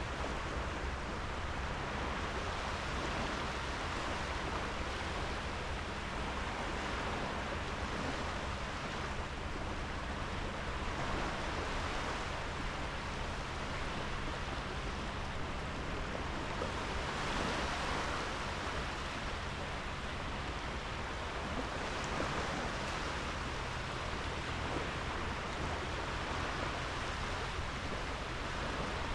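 Sea waves washing onto a sandy beach: a steady wash of surf that swells a little every few seconds.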